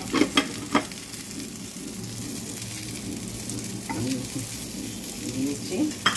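Steady frying sizzle from a pan of potato-and-pea filling on the stove. A metal spatula clinks sharply against the pan a few times in the first second, and again around four seconds in.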